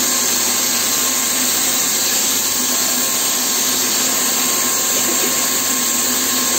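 Bosch PFS 5000 E paint sprayer running steadily while spraying paint. Its turbine blows air down the hose to the spray gun, giving a constant hiss with a faint whine.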